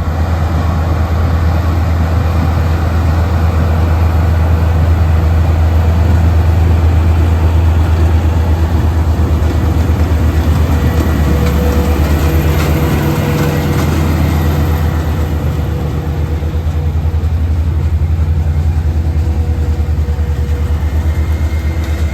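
OXBO 8430 self-propelled sweet corn harvester running steadily while harvesting, with a deep, even engine drone. A second, higher hum joins briefly in the middle.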